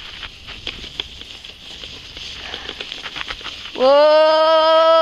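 Wooden sledge runners hissing and scraping over packed snow on a fast downhill run, with small ticks and clicks. About four seconds in, a person lets out one long, loud cry held on a single pitch.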